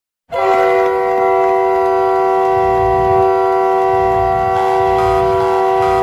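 Arena goal horn sounding one long, loud chord of several steady tones, starting sharply about a third of a second in. A low pulsing beat runs underneath in the second half.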